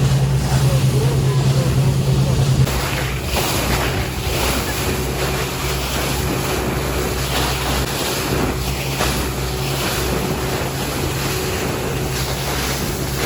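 Motor launch's engine running with a steady low drone, with water rushing past the hull and wind buffeting the microphone. About three seconds in, the engine drone drops back and the wind and water hiss take over.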